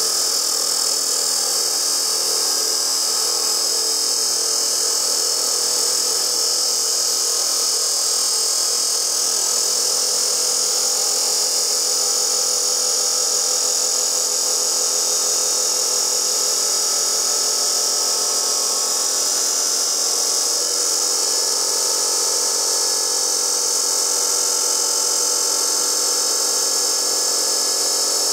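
A DeWalt D28710 14-inch abrasive chop saw's cut-off wheel grinds steadily through 1/8-inch-wall, 3-inch square steel tubing under load. It makes a loud, continuous high-pitched grind over the motor's steady whine.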